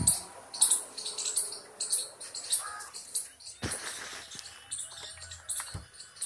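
Handling noise from a car's rubber floor mat being lifted and moved by hand, with a sharp knock about three and a half seconds in. Throughout are many short, high chirps a few tenths of a second apart.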